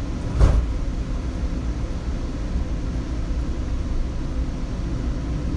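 Seattle Link light rail car running, heard from inside: a steady low rumble with one sharp knock about half a second in.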